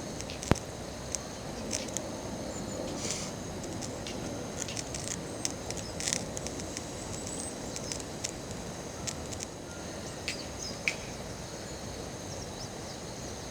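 A chorus of insects chirping steadily at a high pitch, with scattered sharp clicks and ticks, the loudest about half a second in. There are so many insects that the sound is almost noisy.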